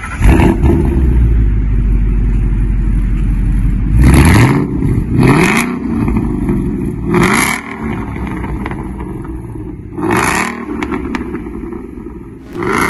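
Ford Mustang GT's 5.0-litre V8 exhaust rumbling at idle, revved in short sharp blips about five times, each rising in pitch and falling back to idle.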